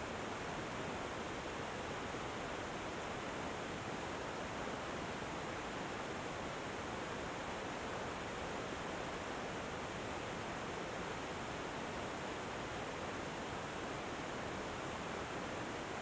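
Mountain waterfall pouring over rock boulders: a steady, unbroken rush of falling water.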